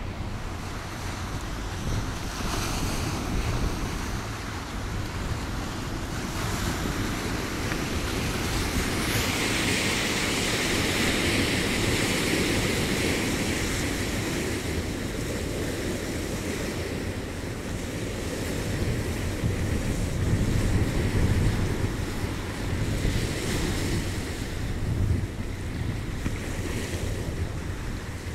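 Small waves washing onto a stony shore, swelling to a louder wash about ten seconds in and again around twenty seconds, with wind rumbling on the microphone.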